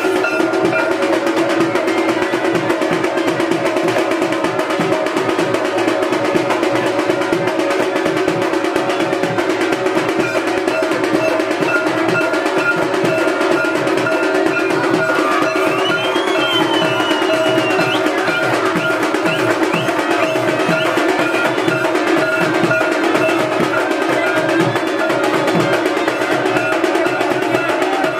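Loud festival procession music: fast, continuous drumming and percussion with steady sustained tones held over it.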